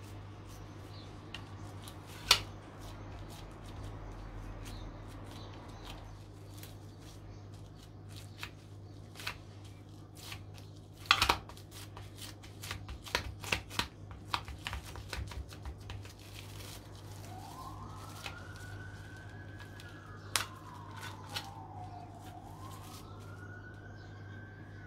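Handling noise of cling film and minced meat being pressed into a film-lined jar lid: crinkles and sharp clicks, the loudest about two seconds in and again near the middle, over a steady low hum. In the last third an emergency-vehicle siren wails, rising and falling twice, fainter than the clicks.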